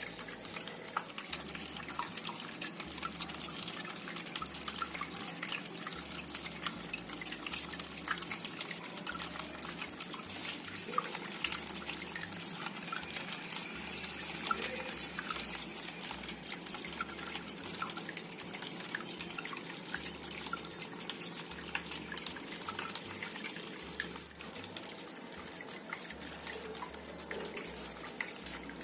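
Water trickling and dripping steadily in a small homemade indoor waterfall fountain, with many small drips through it.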